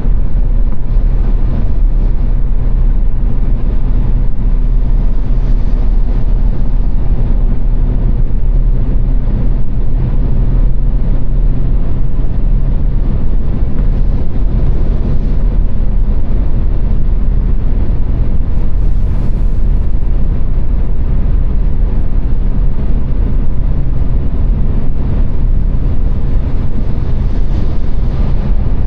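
Car driving at speed on a motorway: steady loud road, tyre and engine noise, with a low hum that fades out about halfway through.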